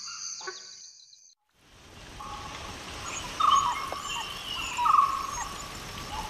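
Dhole pup crying: a repeated whistling call, each about a second long, coming about every second and a half over a steady hiss. Crickets fade out in the first second, before the calls begin.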